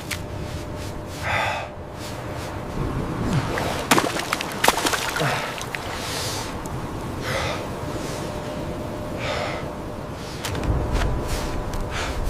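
A person breathing hard, with short audible breaths every second or two, and two sharp knocks about four seconds in.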